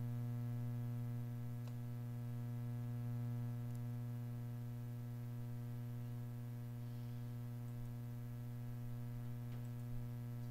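Steady low electrical hum with a stack of overtones, the background noise of the recording, with a few faint ticks.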